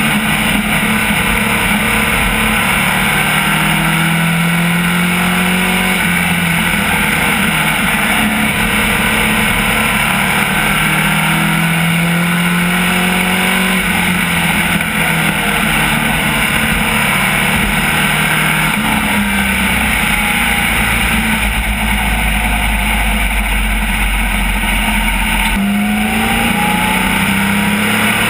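Racecar engine heard from inside the cockpit at race speed, loud throughout. Its revs climb and drop every several seconds.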